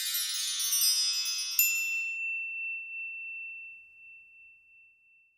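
Chime sound effect of a logo sting: many high ringing tones that thin out, with a bright accent about one and a half seconds in, leaving a single high tone that rings on and fades away near the end.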